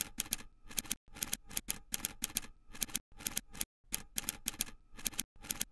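Typewriter keys clacking in rapid, uneven runs of sharp strikes with short pauses between them, in time with text being typed onto the screen.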